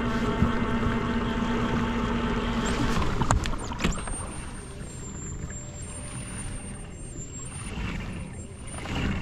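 Old Town ePDL+ electric pedal-assist drive running under power: a steady whine from the motor and its gears for about three seconds. After a cut it gives way to a quieter steady hiss of water and air with a faint hum.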